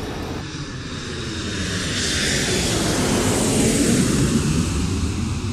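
Airplane passing overhead: rushing engine noise that swells to its loudest about four seconds in, then fades.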